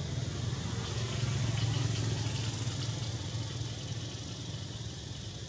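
Low, steady engine hum of a motor vehicle going by, growing louder about a second in and slowly fading toward the end.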